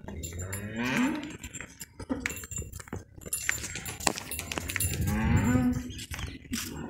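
Cattle mooing: two long calls, the first rising in pitch, with short clinks scattered between them.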